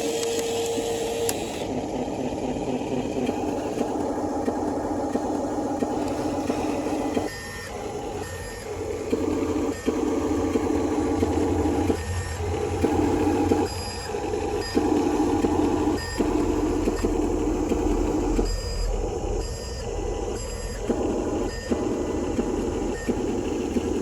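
Electric gear motors of a Huina remote-control construction model whirring. From about seven seconds in they stop and start again in short bursts, as the controls are worked in spurts. A brief steady beep sounds at the very start.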